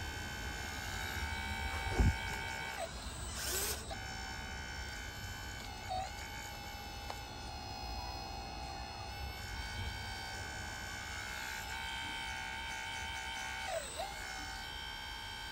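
Hydraulic pump of a 1/16 Double E Volvo 160E RC excavator converted to hydraulics, whining steadily at a high pitch. The pitch sags briefly a few times as the bucket digs and loads it. A sharp thump comes about two seconds in.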